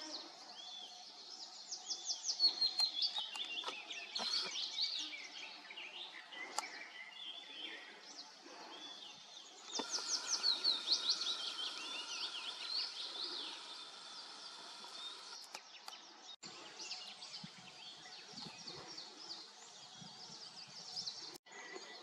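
Several songbirds singing in a morning chorus, one after another. A song of quick, high, descending notes stands out, loudest about two seconds in and again about ten seconds in.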